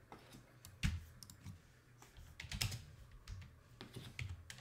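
Scattered light clicks and taps of trading cards being handled, a few separate strokes with a short cluster a little past halfway.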